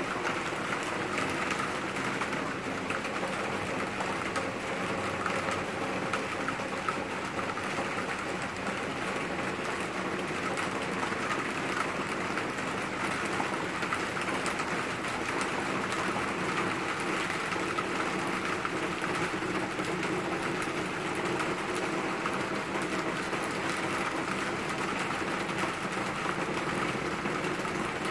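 Steady summer rain falling on the trees and garden: an even, unbroken hiss that holds the same level throughout.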